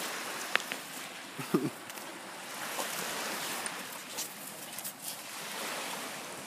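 Steady hiss of small waves washing on a sandy beach, with a brief low grunt about one and a half seconds in and a few light clicks.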